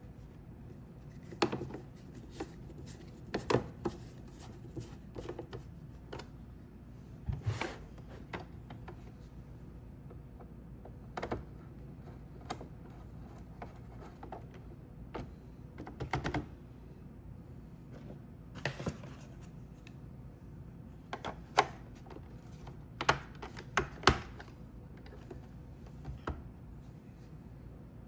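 Irregular clicks and knocks of plastic robot-vacuum parts and a screwdriver being handled as the bottom cover plate and battery cover are fitted and screwed on, some clicks coming in quick pairs.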